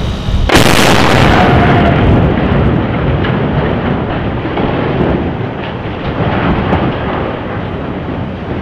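Precision cutting charges going off on the collapsed steel truss of a bridge: a sudden loud blast about half a second in, then a long rumbling roar that slowly fades as the severed truss comes down into the water, with a few sharper cracks along the way.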